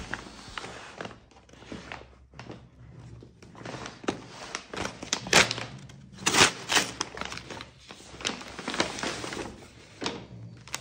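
Brown kraft-paper mailer bag crinkling and rustling as it is handled and opened and clothes are pulled out of it: irregular crackles, loudest a little past the middle.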